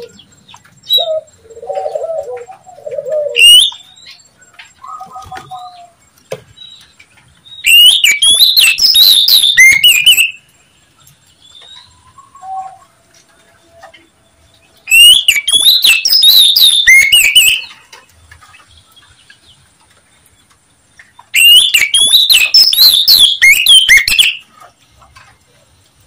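Oriental magpie-robin (kacer) calling: three loud bursts of rapid, scratchy chattering, each about three seconds long and several seconds apart, with a few softer, lower notes in the first few seconds.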